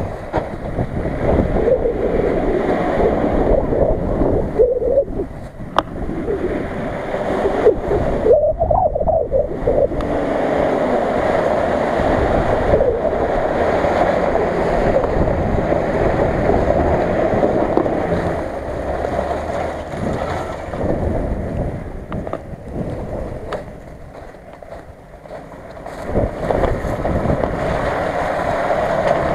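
Nissan Patrol off-roaders wading through a shallow river: water churning and splashing around the wheels over the engines running, with wind buffeting the microphone. It eases off for a few seconds near the end.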